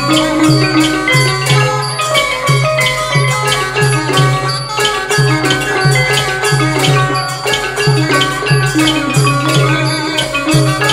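Thai piphat mai khaeng ensemble playing, its hard-mallet ranat xylophones and gong circles striking a fast, dense stream of ringing notes over a regular low beat.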